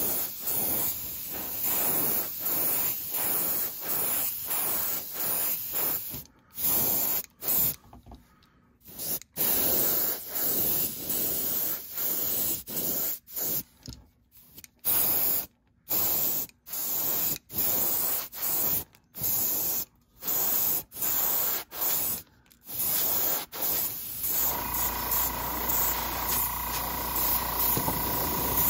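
Airbrush spraying thinned color-shifting paint, hissing in short bursts about a second apart as the trigger is pulsed, with some longer pauses. Near the end a steady motor hum with a thin whine starts up.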